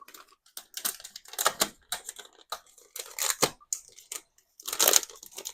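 Irregular rustling, crinkling and scraping handling noises, with a sharper burst a little past three seconds and a longer one near five seconds.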